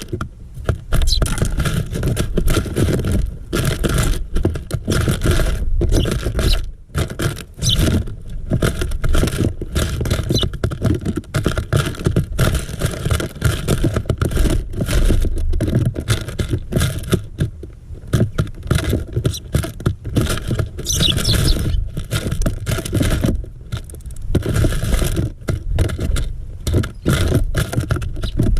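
Small birds pecking and scrabbling on a bird feeder right beside the microphone: dense, irregular taps and scrapes of beaks and claws on the feeder over a steady low rumble, with a few short high chirps.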